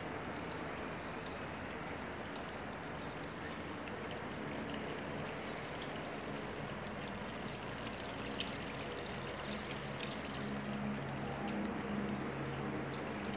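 Steady, even outdoor background noise with a faint low hum joining in over the last few seconds.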